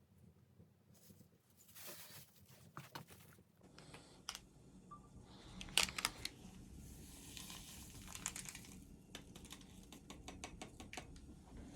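Crinkling, tearing handling noises with scattered sharp clicks and taps, the loudest cluster about six seconds in.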